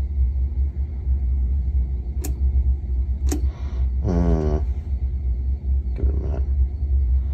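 Tube tester in use: a steady low hum throughout, with two sharp clicks from its selector knob and switches about two and three seconds in and a short buzzing tone a second later.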